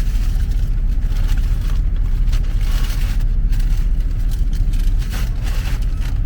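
Car engine and road rumble heard from inside the cabin while driving, steady and low, with a few brief scratchy noises over it.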